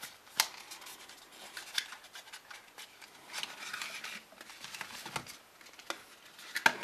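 Cardboard CPU packaging being slid apart and handled: soft rubbing and scraping with scattered small clicks, and a longer rustle about halfway through.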